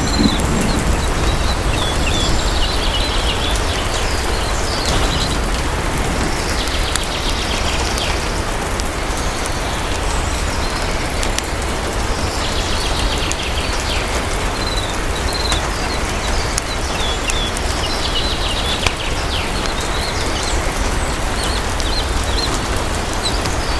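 Steady heavy rain with bird chirps: short clusters of high calls that come and go every few seconds. Scattered small crackles from a fireplace run underneath.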